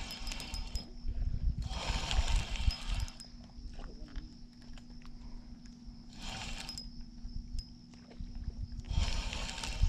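Spinning reel cranked in four short spurts, each a brief whirr, as a hooked trout is reeled in against a bent rod.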